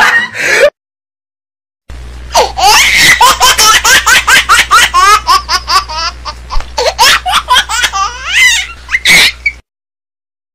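High-pitched laughter, a fast run of ha-ha pulses swooping up and down in pitch, that starts abruptly about two seconds in and cuts off sharply about a second before the end; a shrill voice just before it breaks off right at the start.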